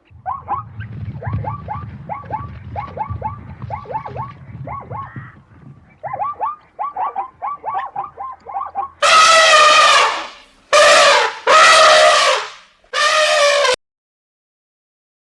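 Animal calls: a fast run of short, high, falling squeaks for about nine seconds over a low rumble. Then four loud, harsh, trumpet-like calls in quick succession, after which the sound cuts off.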